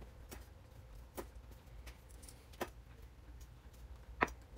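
Faint, scattered knocks and taps on a wooden cutting board as hands sort fresh parsley sprigs, about five in all, the loudest near the end, over a low steady hum.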